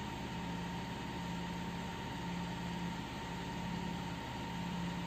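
Steady mechanical hum with a constant thin whine and a low tone that swells and fades about once a second.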